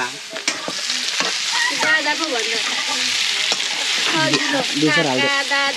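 Pork frying and sizzling in an iron wok while being stirred with a spatula. Voices are heard over it now and then.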